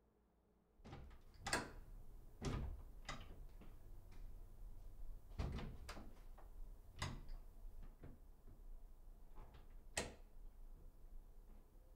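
A series of irregular knocks on a front door, coming singly and in pairs every half second to two seconds, over faint room tone.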